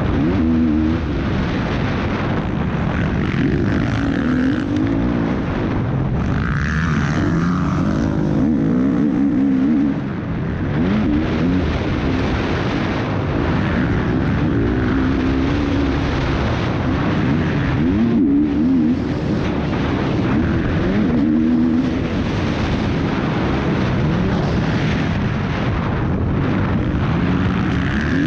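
MX2 motocross bike engine revving up and falling back again and again as the bike is ridden hard around a dirt track. Wind rushes over the helmet-mounted camera. The engine drops off briefly about ten seconds in.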